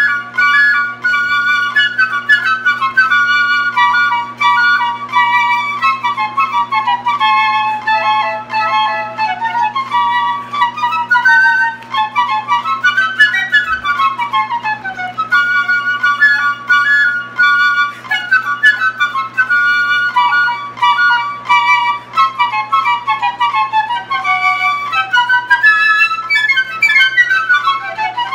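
Two piccolos playing a duet in harmony, the same player recorded twice and layered. The parts move in quick runs of notes that rise and fall together in the instrument's high register.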